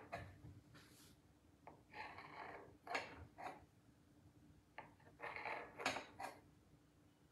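Knife blade cutting through a sheet of crescent-roll dough, making several short, faint scrapes and taps against the surface underneath, with pauses between the cuts.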